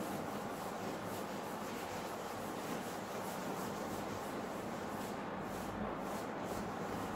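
Whiteboard eraser rubbed across a whiteboard in repeated wiping strokes, clearing off marker writing.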